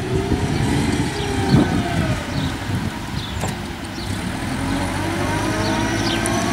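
LPG-powered TCM FG15N18 forklift engine running while the truck drives. Its pitch falls in the first second and rises again from about four seconds in, as the truck changes direction.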